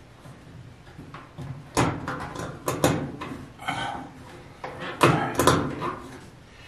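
Hardware clicking and a few sharp metallic clanks against a dryer's sheet-metal back panel as a power cord is fitted to its terminal block. The loudest knocks come about two and five seconds in.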